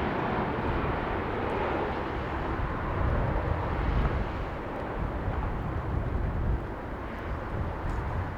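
Airliner engines rushing as the aircraft passes, fading after about five seconds, with strong gusting wind buffeting the microphone in low, irregular rumbles.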